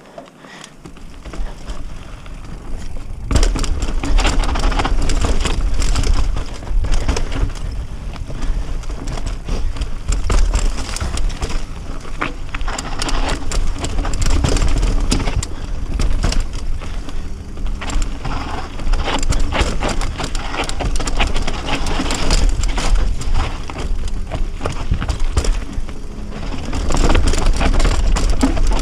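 Mountain bike riding down a rough dirt forest trail: tyres crunching and rattling over dirt, roots and rocks, with a constant clatter of sharp knocks from the bike and a low rumble. It starts quieter and turns loud after about three seconds.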